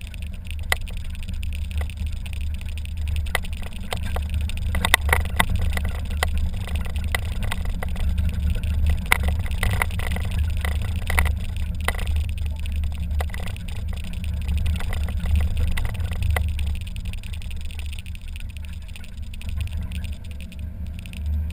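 Mazda Miata roadster driving with the top down: a steady low rumble of engine, tyres and wind buffeting the open cockpit. A run of sharp clicks and knocks comes between about five and twelve seconds in.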